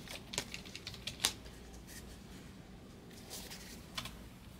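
Faint, scattered light clicks and taps of trading cards and their plastic holders being handled, with a few quick clicks in the first second and the sharpest about a second in, then a couple more near the end.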